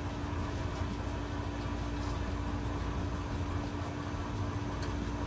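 Steady background hum and hiss with a constant low tone, typical of a running fan or air conditioner.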